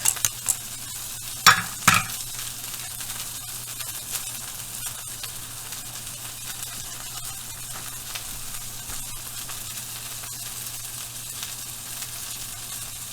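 Burger patties sizzling steadily as they fry in a pan on the stovetop. A few sharp knocks of utensils or cookware come in the first two seconds.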